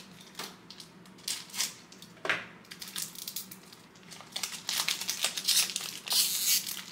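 Plastic wrapper of a trading card pack being crinkled and torn open. The crackling is sparse at first, then denser and louder for the last few seconds.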